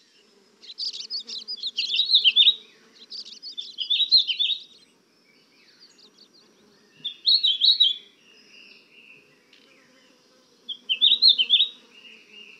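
Small songbirds twittering in four quick bursts of rapid, high chirps, with short pauses between them, over a faint low steady buzz.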